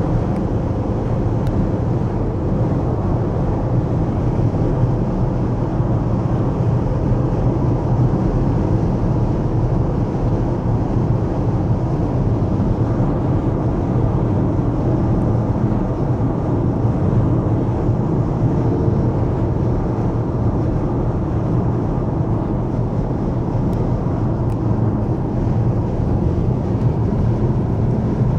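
Steady road noise inside a car cruising at highway speed: a continuous low drone of tyres and engine with no distinct events.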